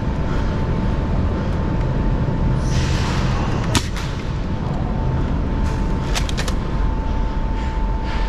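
Foam-dart blaster fire during a Nerf game: a brief hiss about three seconds in, one sharp loud snap just before four seconds, and a quick run of clicks a little after six seconds, over a steady low rumble and a faint steady whine.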